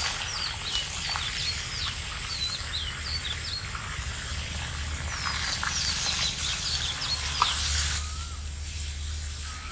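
Pieces of meat being dropped into hot oil in a large wok-shaped pan, sizzling steadily, with a few short clicks as pieces land. Birds chirp repeatedly over it in short calls that rise and fall.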